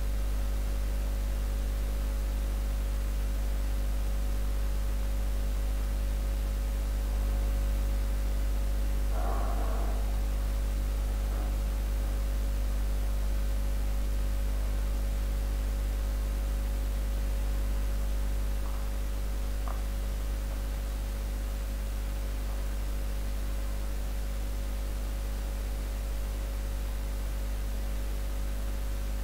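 Steady electrical mains hum with its overtones over a background hiss, easing slightly about eighteen seconds in; a brief faint sound about nine seconds in.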